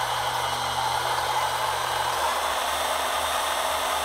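Hydraulic pump of an RC crane truck whirring steadily while the Palfinger loading crane moves its load. A low hum under the whir cuts out about halfway through.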